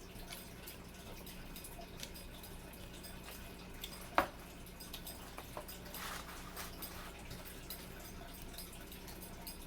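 Light handling noises of food and wrapper: scattered soft clicks and rustles, with one sharper click about four seconds in, over a low steady hum.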